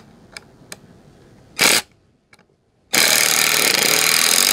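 Cordless power drill driving a screw into a wooden board: a short burst of the motor about a second and a half in, then a longer run of nearly two seconds from about three seconds in.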